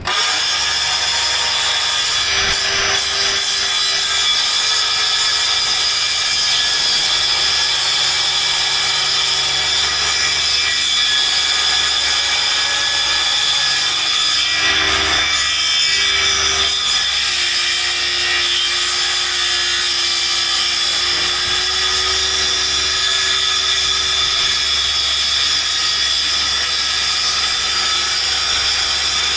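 Cordless power saw cutting through wood, its motor whining steadily under load without a break.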